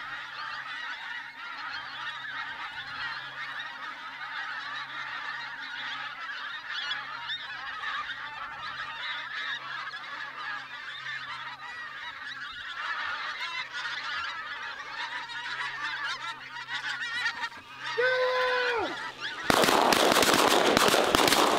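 A huge flock of pink-footed geese calling overhead, a continuous din of overlapping high honks. Near the end one falling call stands out, then a loud rushing noise covers everything for about two seconds.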